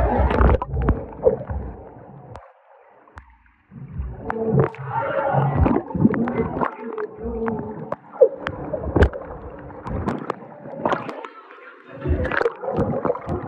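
Muffled gurgling, bubbling and splashing of pool water around a camera dipped below the surface, with scattered sharp clicks and knocks.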